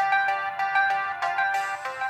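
Samsung ringtone playing on a ZTE Z222 phone's speaker: a quick, bright melody of clean notes in several voices at once.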